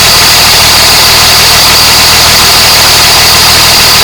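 Cat 120H motor grader's diesel engine idling steadily, heard up close with a steady high-pitched whine over it, during a blow-by check that the owner says shows zero blow-by.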